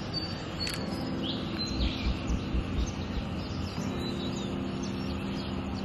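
Small birds chirping and twittering over a steady bed of distant city noise, with a few low thumps about two seconds in.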